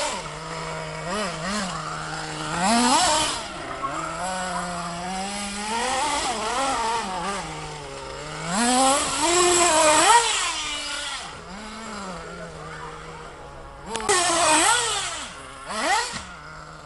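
Radio-controlled model car's small engine running and revving up and down repeatedly. It gives hard revs about three seconds in, around nine to ten seconds, and twice near the end.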